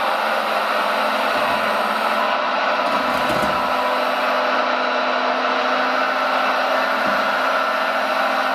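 Steady whirring of a hydraulic RC construction model's electric motor and hydraulic pump running, with a faint low hum under it and a few soft low rumbles.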